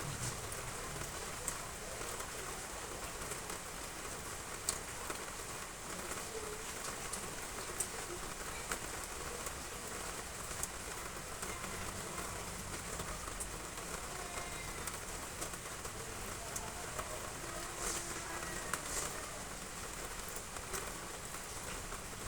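Heavy rain falling steadily, with sharp drop impacts now and then.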